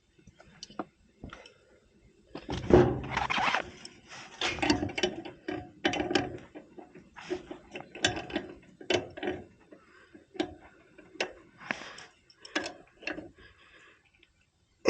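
Hand-work clicks, clinks and scrapes of metal tools and fittings as a pressure switch is fitted onto a refrigerant service port, with a louder clatter about two and a half seconds in.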